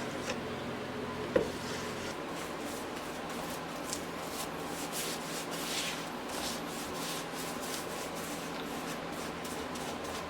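Paintbrush strokes scratching over old, dry wooden deck boards, a few irregular strokes a second, over a steady low hum. A single sharp knock sounds about a second and a half in.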